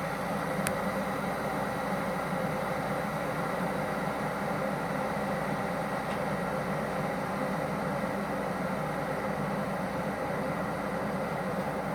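Zeppoli glass electric kettle with its water still boiling, just coming off the boil: a steady, even rushing noise.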